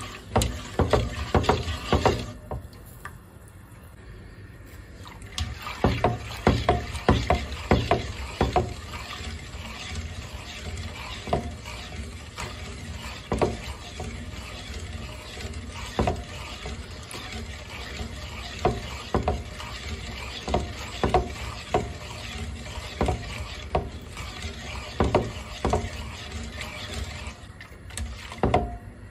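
A whisk stirring milk in a pot: liquid swishing with frequent, irregular taps of the whisk against the pot. There is a quieter stretch a couple of seconds in before the tapping picks up again.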